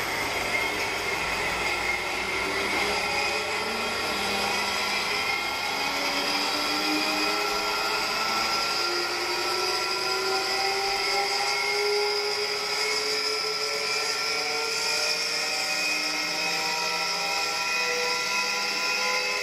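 KMEC tubular centrifuge running with a high-pitched machine whine made of several tones that rise slowly in pitch as the bowl speeds up.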